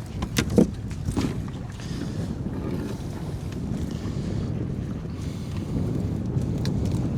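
Wind buffeting the microphone in a small inflatable boat at sea, a steady low rumble, with a few sharp knocks in the first second or so.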